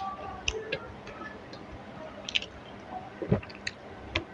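Close-up eating sounds: a person chewing a mouthful of rice and curry, with scattered wet mouth clicks and smacks.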